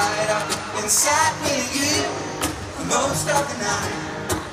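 Live concert music heard from the audience: a man singing to his own acoustic guitar.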